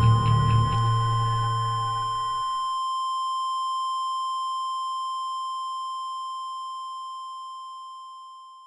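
Electronic logo sting. A low drone and a cluster of steady synthesized tones drop away about two and a half seconds in, leaving one high steady tone that slowly fades out.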